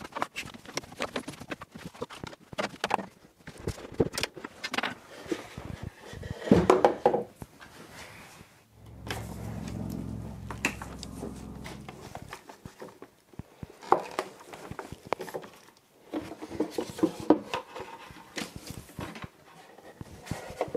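Clatter and knocks of cordless drills, drivers, battery chargers and their cables being lifted out of a wooden storage shelf and set down. A low, steady hum runs for about three seconds in the middle.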